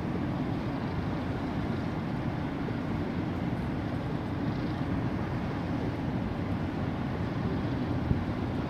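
Large car ferry under way close by: a steady low rumble of its engines and the rush of its wash, with a brief tick near the end.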